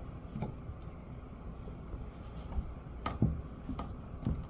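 Steady low rumble with a few light knocks, the clearest two close together about three seconds in.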